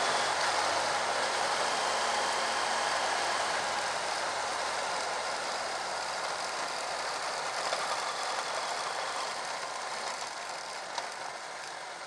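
BMW F800GS motorcycle riding on a loose gravel road: a steady rush of wind and tyre noise over the engine, getting gradually quieter as the bike slows. A couple of sharp clicks near the end.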